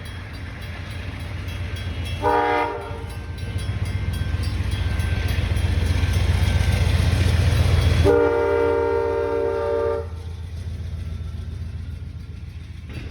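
Train passing a level crossing: a low rumble builds as it approaches, with a short horn blast about two seconds in and a longer, louder horn blast of about two seconds near eight seconds in. The rumble drops to a quieter steady level as the long blast begins.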